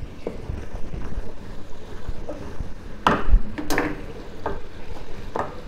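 Wooden spatula stirring and scraping sugar syrup bubbling in a nonstick frying pan as it cooks down into caramel, with a couple of sharper knocks about three seconds in.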